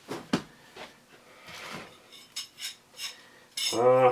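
Packaging rustles and a soft thud as a wrapped sheet set is put down. Then two small metal rings clink together several times in quick succession, and a short hummed "hmm" comes near the end.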